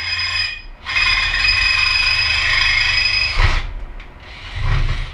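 Cordless drill boring holes through the steel RackEm helmet holder: a brief start, then a steady high motor whine for about two and a half seconds that ends in a knock, and a shorter low rumbling burst near the end.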